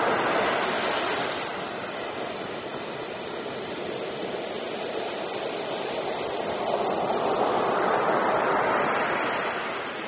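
Surf breaking on a beach: a wave crashes at the start, the wash eases off, and another wave swells and breaks about eight seconds in.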